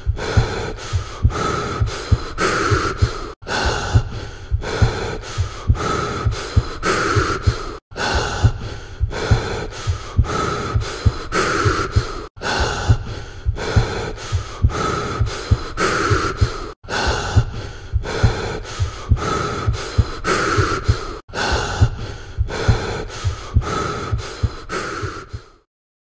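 A person's heavy, gasping breathing, a short loop repeated about every four and a half seconds with brief breaks, over a low pulsing throb.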